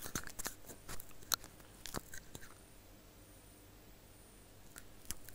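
Perforated metal skimmer clinking and scraping against a metal deep-frying pot as crisp fried papads are scooped out of the oil. Sharp clicks come in a quick cluster over the first couple of seconds, then a few more near the end.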